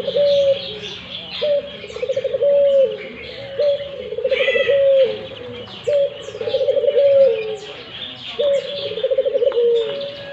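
Puter dove (ringneck dove) cooing over and over in a steady, vocal run. It gives about five calls, each a short note, a fast rolling trill and a long drawn-out coo. Small birds chirp faintly in the background.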